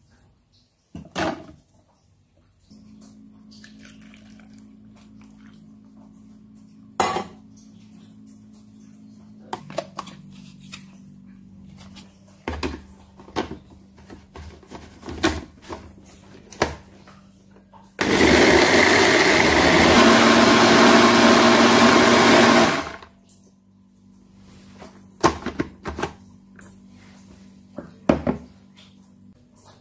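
Countertop electric blender running for about five seconds, blending mango chunks, starting and stopping abruptly. Before it come scattered knocks and clicks as the plastic jar is set onto the base, and after it a few more knocks.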